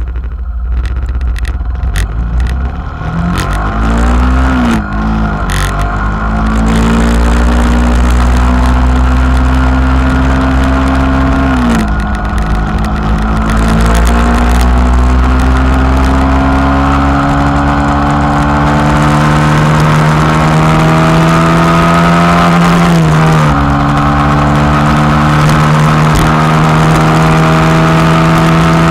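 Motorcycle engine pulling through the gears at road speed. Its pitch climbs steadily, drops at an upshift about twelve seconds in, climbs again and drops at a second upshift about twenty-three seconds in. Wind rushes low on the microphone, with a few knocks in the first seconds.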